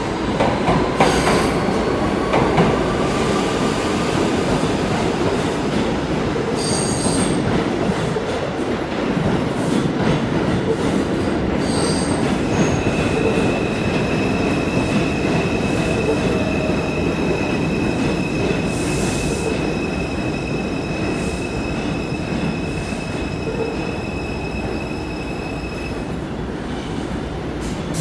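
New York City Subway trains moving through an underground station, with a continuous heavy rumble of wheels on rail and a few sharp clicks early on. From about halfway in, a steady high squeal runs over the rumble and stops shortly before the end.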